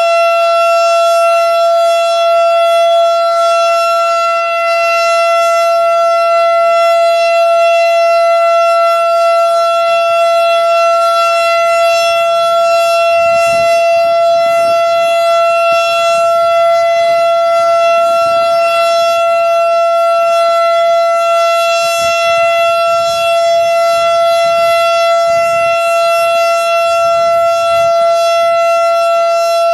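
Federal Signal STH-10 three-phase outdoor warning siren sounding the Alert signal: one loud tone held at a constant pitch.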